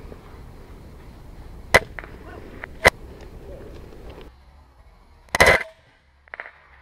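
Airsoft guns firing: two sharp single shots about a second apart, then, about five seconds in, a louder short rattle of rapid shots.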